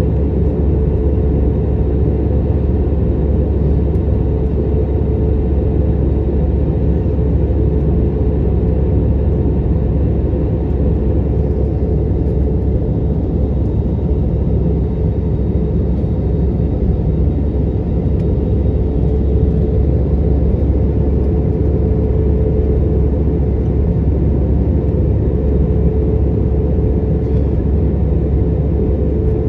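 Steady cabin noise of an Airbus A321neo in flight, heard from a window seat beside the wing: a deep, even rumble of airflow and the Pratt & Whitney PW1133G geared turbofan engines, with a steady hum.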